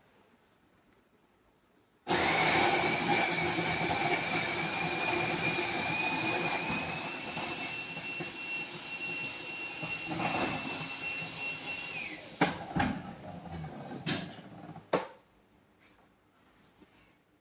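Bean-to-cup coffee vending machine's grinder starts about two seconds in and runs for about ten seconds with a steady high whine, then stops. A few sharp clicks and knocks of the machine's mechanism follow.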